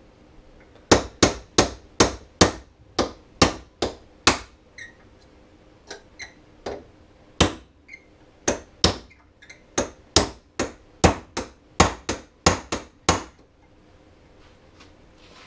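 Hammer striking a pin punch, driving a roll pin out of an Arctic Cat roller secondary clutch held in a vise: about thirty sharp metal blows at two to three a second, some with a short ring. A run of blows is followed by a brief pause, then a longer run that stops about thirteen seconds in.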